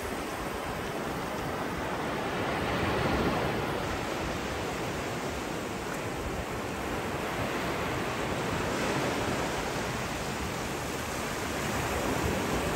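Steady wash of sea surf breaking on a beach, swelling gently now and then.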